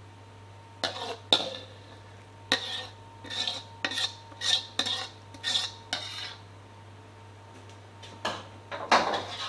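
Metal ladle scraping and knocking against a wok as soup is ladled and poured into a bowl: a run of short clinks and scrapes, a pause, then more clatter near the end.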